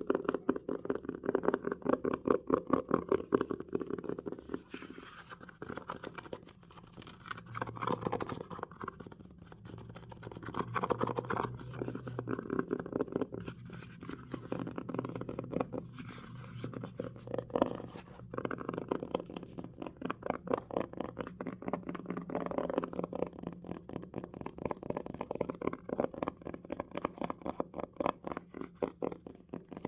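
Fast ASMR finger tapping on a hamster-shaped object: a dense, unbroken run of light taps, many a second, growing louder and softer in waves.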